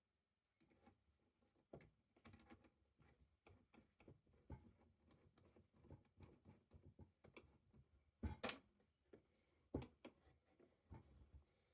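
Faint, irregular clicks and knocks of something being handled, with a louder knock about eight seconds in and another near ten.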